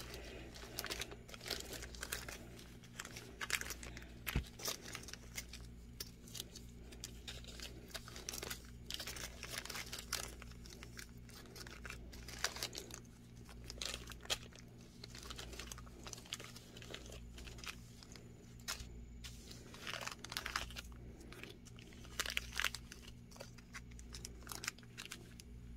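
Small plastic zip-top bags of beads crinkling and rustling as they are picked up, shuffled and set down on a table, in scattered short bursts, over a faint steady low hum.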